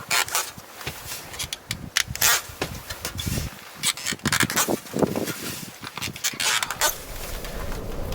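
Irregular handling noise: short knocks, clicks and rustling scrapes coming unevenly throughout, with no steady rhythm.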